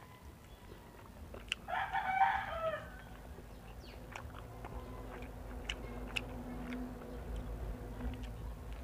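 A rooster crows once, about two seconds in, a pitched call lasting about a second. Short faint clicks of corn kernels being bitten off the cob come before and after it, and a low steady hum sets in past the middle.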